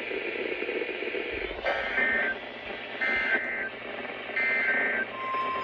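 Three short bursts of screechy digital data tones from an Emergency Alert System broadcast, about a second and a half apart over steady radio hiss: the SAME end-of-message code that closes the tornado warning. A steady single tone starts near the end.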